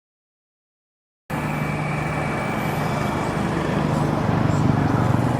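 Silence, then about a second in a steady outdoor din cuts in, with a low engine hum like nearby road traffic.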